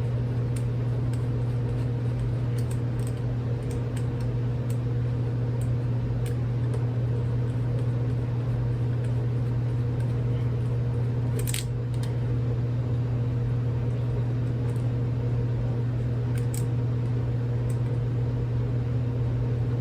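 A steady low machine hum, with scattered light metallic clicks and taps from a screwdriver working small screws out of a revolver's grip frame. Two sharper clicks come about eleven and sixteen seconds in.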